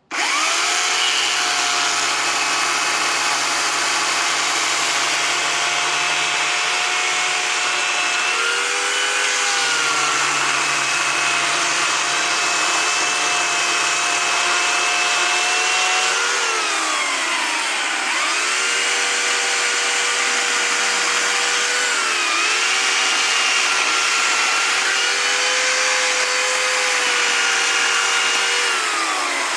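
Motorised saw running steadily while cutting firewood. Its pitch sags and recovers a few times as the blade takes load, with one longer fall and recovery about halfway through.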